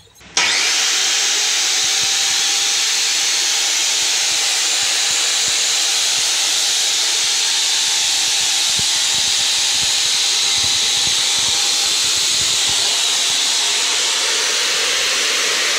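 Verx 14-inch chop saw (abrasive cut-off machine) switched on about half a second in and running steadily at full speed with no cut being made: its brushed motor is on a test run just after a new armature, field coil and carbon brushes were fitted.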